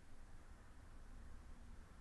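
Near silence: room tone with a faint, steady low rumble.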